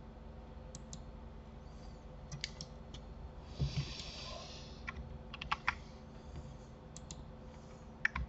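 Faint, scattered clicks and taps of a computer keyboard and mouse, with a brief rustle and a soft thump about three and a half seconds in, over a low steady hum.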